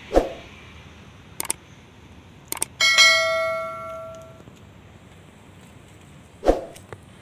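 Subscribe-button overlay sound effect: a thump, then two sets of mouse clicks, then a bright bell ding that rings out and fades over about a second and a half. Another thump comes near the end.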